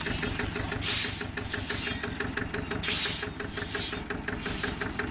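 Massey Ferguson 152 tractor engine running steadily with an even, fast beat. Short bursts of hiss come about a second in and again around three and four seconds.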